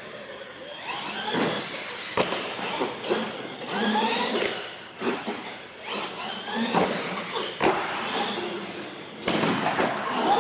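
Radio-controlled monster truck's electric motor whining as it revs up and down. Several sharp knocks come as the truck hits the ramps and lands on the concrete floor.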